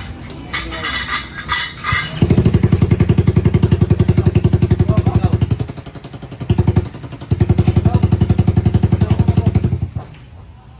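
Suzuki Raider R150 Fi single-cylinder four-stroke engine running loud through a Jecspeed open aftermarket exhaust, held at raised revs in two long bursts with a short blip between, then dropping back near the end. A few light metal clinks come before the first burst.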